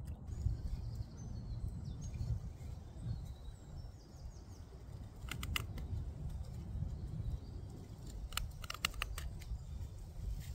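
Knife blade carving a small wooden spatula, a few sharp clicking cuts in two short runs, the second near the end. Faint bird chirps in the first half over a low steady rumble of wind.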